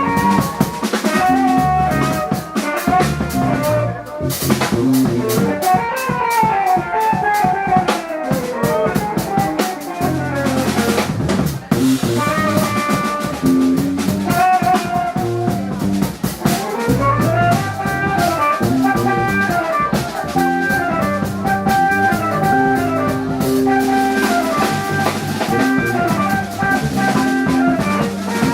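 Live band playing: a drum kit with bass drum, snare and rimshots drives under pitched melodic lines that run in quick descending phrases over low bass notes.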